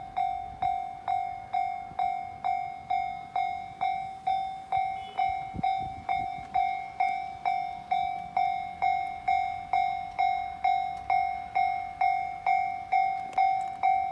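Japanese level-crossing warning bell ringing steadily, an electronic two-tone ding repeating a little over twice a second.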